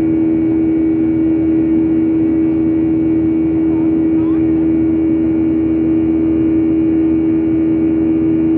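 Steady loud drone inside a passenger aircraft's cabin in flight, soon after takeoff: engine and airflow noise with a strong steady hum, unchanging throughout.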